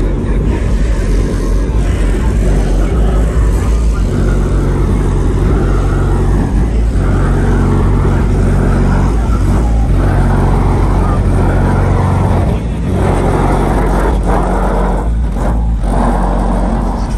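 Car driving at a steady pace: the engine runs under a broad wash of road and wind noise, with a short dip in level about two-thirds of the way through.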